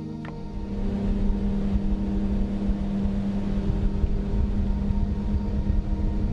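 Outboard motor of a small aluminium boat running under way: a steady drone over a rough low rumble that comes in about half a second in and then holds steady.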